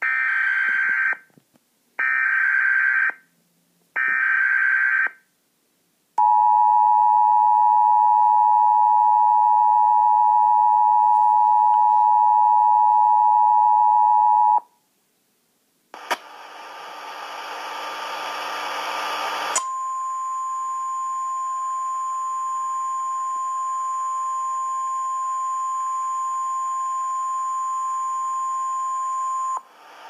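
Emergency Alert System tornado warning: three short screeching data bursts of the SAME header, about a second each and two seconds apart, then the two-tone EAS attention signal held for about eight seconds. After a short gap comes a hiss, joined a few seconds later by a single steady tone lasting about ten seconds that cuts off near the end.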